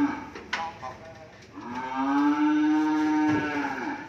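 Cattle mooing: the end of one moo at the start, then one long steady moo of about two seconds beginning about a second and a half in. A sharp knock sounds about half a second in.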